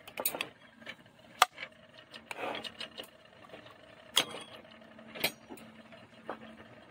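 Metal spoon clinking a few times against a glass serving bowl and plates as beans are dished out, with sharp clicks about a second and a half in, around four seconds and around five seconds. A faint steady hum runs underneath.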